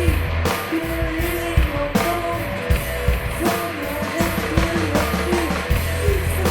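Rock music, an instrumental passage: a lead guitar line with bending notes over bass and a steady drum beat.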